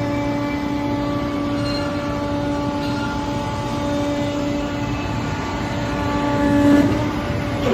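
Hydraulic power unit of a 500-ton copper scrap baler running with a steady whine, growing louder for a moment about six and a half seconds in.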